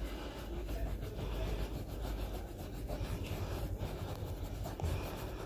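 Microfiber towel rubbed back and forth over carpet pile by hand, a steady scrubbing rub, over a low steady rumble.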